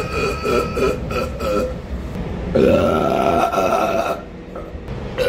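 A man burping loudly and deliberately: the tail of one burp at the start, then a long, loud, drawn-out burp in the middle, with another beginning at the very end. The steady whine and rumble of the subway car run underneath.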